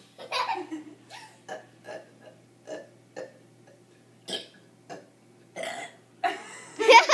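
Children burping in turn: a string of short burps, about a dozen, with a louder, longer sound near the end.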